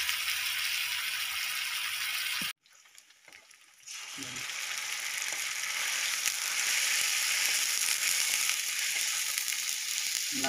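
Onions frying in oil in a steel kadhai on a gas stove: a steady sizzle. It cuts out for about a second and a half a little over two seconds in, then comes back and grows slowly louder.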